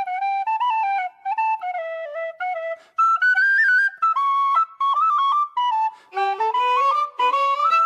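Instrumental background music: a flute plays a melody of short, stepping notes, and a second, lower instrument joins about six seconds in.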